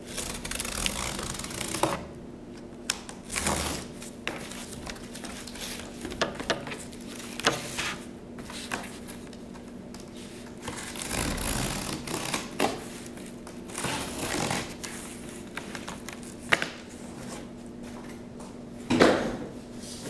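Cutting sounds: irregular scraping strokes, some about a second long, mixed with sharp clicks, over a faint steady hum.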